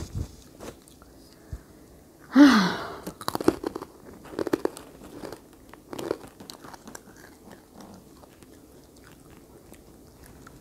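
A person chewing a crunchy snack close to the microphone: one louder burst about two seconds in, then a run of small crisp crunches that thin out.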